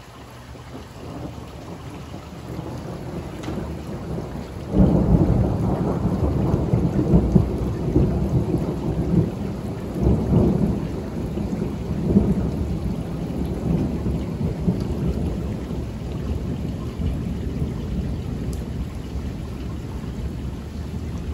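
A long roll of thunder: a low rumble that builds, breaks loud and sudden about five seconds in, swells again twice, then slowly dies away.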